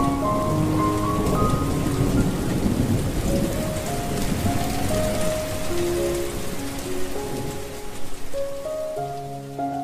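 Heavy rain with a low rolling rumble of thunder, under soft background music of slow, sustained notes. The rain and rumble ease off in the second half, leaving the music more prominent.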